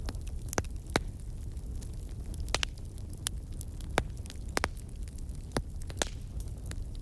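Firewood burning: irregular sharp pops and crackles over a low, steady rumble.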